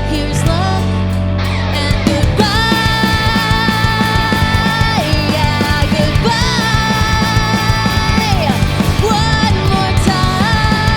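Punk/indie rock band playing live: drums and guitars driving steadily, with long held melody notes that bend in pitch on top.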